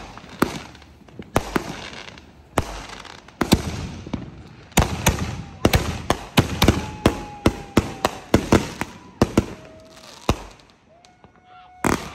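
Consumer aerial fireworks going off in a run of sharp bangs and crackles. The bangs come thick and fast from about five seconds in, with a faint falling whistle among them, then thin out before one last loud bang near the end.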